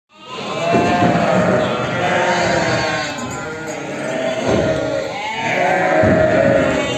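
A flock of sheep and lambs bleating, many calls overlapping at once without a break.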